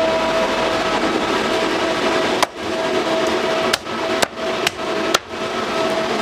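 A cleaver chopping chicken on a chopping block: five sharp strikes in the second half, roughly half a second apart, over a steady background hum.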